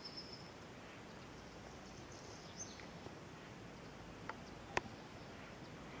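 Faint, high bird calls over a steady low hiss, a few near the start and again about two seconds in. A sharp click about three-quarters of the way through is the loudest sound, with a softer one just before it.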